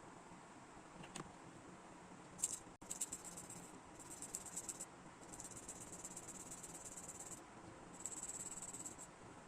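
Fine, rapid scraping in several bursts of one to two seconds each, quiet and high-pitched: small hand work on a plastic toy figure's part during repair.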